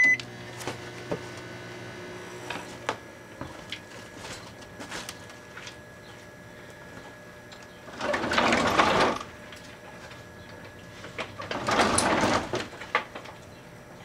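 700-watt Rival microwave oven running: a short high beep right at the start, then a steady hum with scattered clicks. Two longer bursts of noise come about eight seconds in and again near the end.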